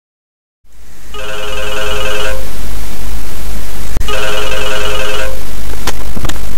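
Electronic telephone ringer ringing twice, each ring a trilling burst of about a second, over a loud low hum and hiss; a few sharp clicks near the end.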